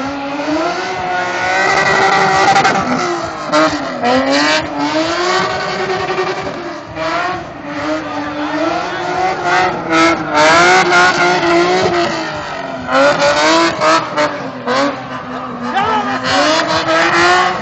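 BMW M3 being drifted: the engine revs rise and fall again and again as the throttle is worked, with tyres squealing in bursts.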